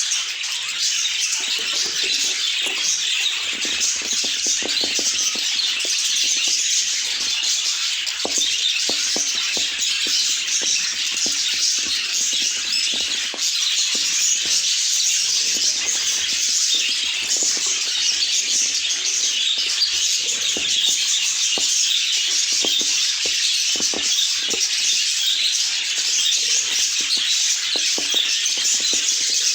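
Budgerigars chattering and chirping nonstop, many fast high-pitched twitters overlapping into one unbroken chatter.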